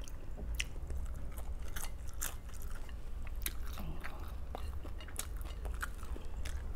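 A person chewing and biting food with irregular crunchy, clicky bites, over a steady low hum.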